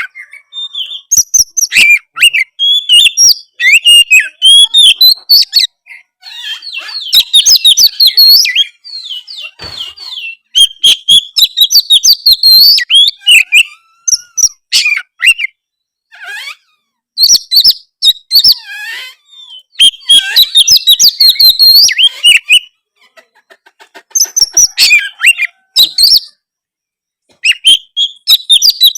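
Oriental magpie-robin (kacer) in full, loud song: quick, varied warbling and whistled phrases in bursts of a second or two, broken by short pauses.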